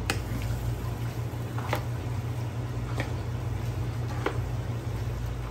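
Metal ladle and spoon stirring wet rice noodles in broth in a large aluminium pan, a wet squishing with four sharp clinks of metal on the pan, over a steady low hum.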